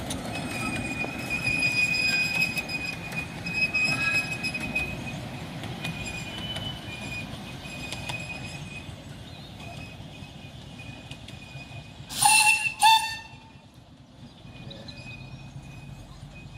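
Miniature 10¼-inch gauge steam train running away over the rails, a steady rumble with thin wheel squeal as it takes the curve. About twelve seconds in come two short, loud whistle toots in quick succession, then it is quieter.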